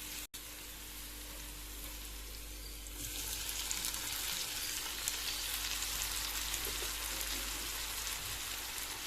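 Chopped tomato, small onions and garlic frying in hot gingelly (sesame) oil in a kadai, a steady sizzle that grows louder about three seconds in.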